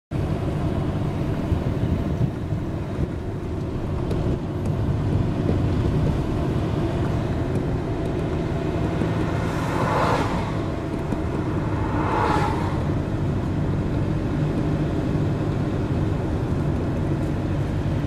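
Steady low road-and-engine rumble inside a moving car's cabin. Two brief whooshes swell and fade about ten and twelve seconds in.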